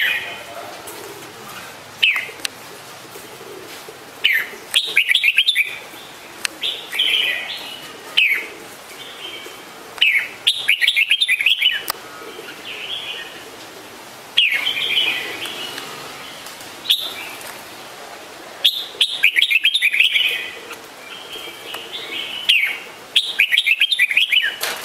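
Red-whiskered bulbul singing: short bright chirped phrases every second or two, with a few quicker runs of rapid notes.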